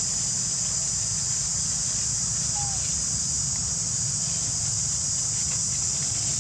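Steady high-pitched drone of insects in the forest, over a low steady rumble, with a faint short squeak about two and a half seconds in.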